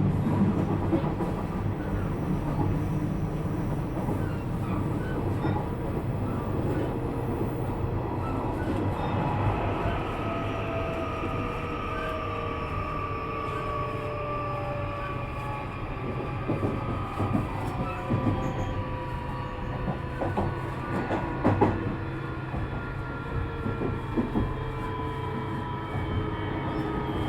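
Nishitetsu 3000 series electric train heard from inside a motor car: a steady rumble of wheels on rail with scattered knocks and rail-joint clicks. From about nine seconds in, a set of thin motor whines falls slowly in pitch as the train slows down.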